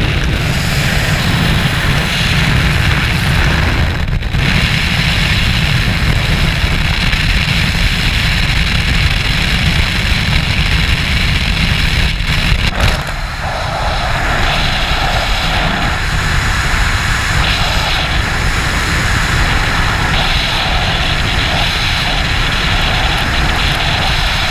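Roar of a jump plane's engines and wind at the open door, heard on a helmet-camera microphone. About 13 seconds in the sound dips briefly and changes into the steady rush of freefall wind over the helmet.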